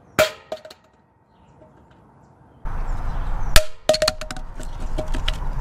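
A Google Home Mini smart speaker dropped about six feet hits a concrete slab with a sharp knock and bounces twice in quick succession. Later a steady low background noise comes in, and a second, louder set of knocks follows: one hard hit and several smaller bounce clatters.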